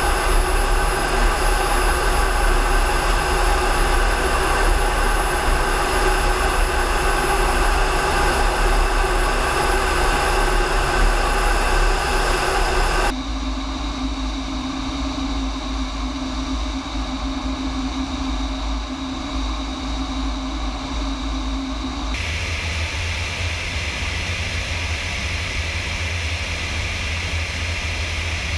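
Military jets in flight heard from on board: a steady, loud din of engine whine and rushing air with several steady high tones. The sound changes abruptly about 13 seconds in to a quieter cockpit hum with one low steady tone, and again about 22 seconds in to a deep rumble with hiss.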